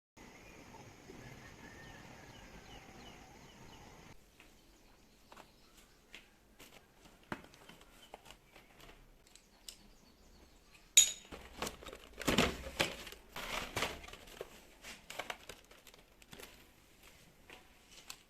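Irregular rustling and crackling with scattered sharp clicks, like close handling of crinkly material. It grows busier and loudest a little after the middle, beginning with one sharp click.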